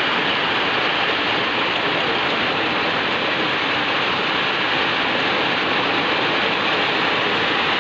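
Heavy downpour: a dense, steady hiss of pouring rain that holds at one level throughout.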